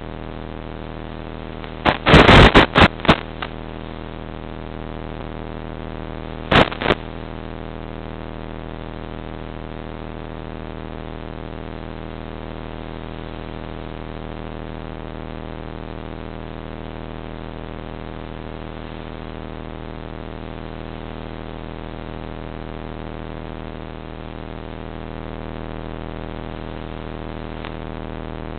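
Steady droning hum on the audio channel of a fixed-wing FPV plane's analog video downlink. About two seconds in comes a cluster of loud crackles lasting about a second, and a single short crackle follows near seven seconds, like radio static in the link.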